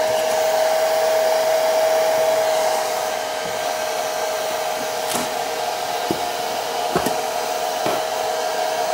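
Handheld hair dryer running steadily on high, a constant whine over rushing air, blowing hot air onto a cardboard box to soften sticker adhesive. A few short clicks come at about one-second intervals from about five seconds in.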